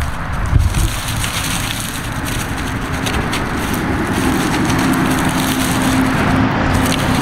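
Dry leaf litter rustling and crackling as a nine-banded armadillo roots through it, over a steady low rumble. A steady low hum comes in about four seconds in.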